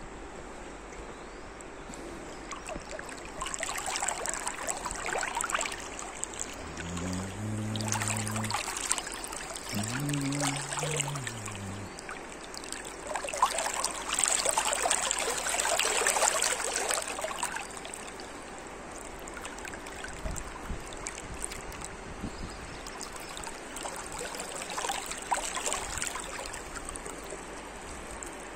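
Shallow river current rippling and splashing right at the microphone, swelling louder in surges several times. Two long, low calls are heard around seven and ten seconds in.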